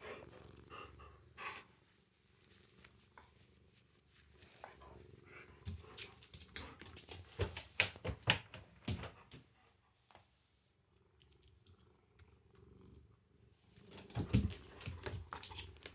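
Domestic cat purring close by, with scattered soft knocks and rustles of movement that are loudest around the middle.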